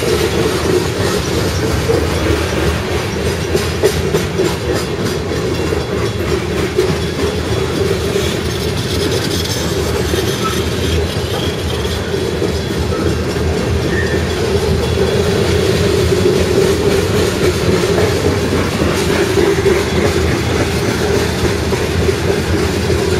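Loaded covered hopper cars of a grain train rolling past at speed: a steady loud rolling of steel wheels on rail, with the clickety-clack of wheels over rail joints.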